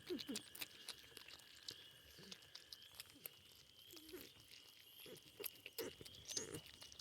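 Porcupines chewing food, with many small crunching clicks, and a few short whiny calls that bend up and down in pitch.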